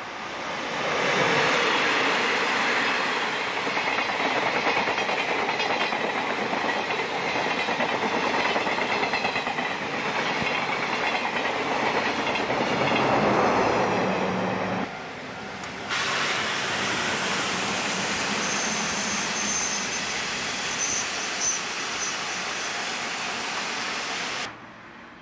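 A train passing close by, its wheels clattering over the rail joints in a steady rush of noise. A thin, high squeal comes and goes in the second half.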